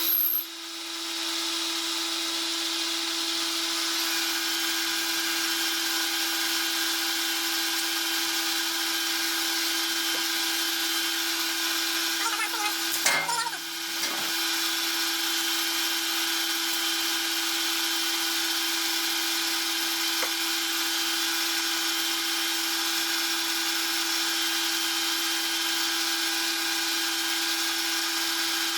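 Metal lathe running steadily while the cutting tool takes a light facing cut across a steel plate, a constant hum with a high whine over it. A short burst of noise breaks in about thirteen seconds in.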